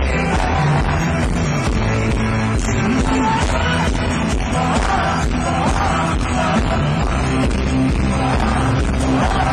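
Live dance-pop music played loud through a concert hall's sound system with a steady beat, recorded from among the audience.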